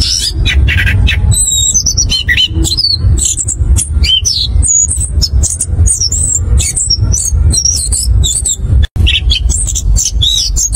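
Chestnut-capped thrush singing a fast, continuous rolling song of varied whistles, trills and sharp clicky notes, over a low background rumble. The sound cuts out for an instant near the end.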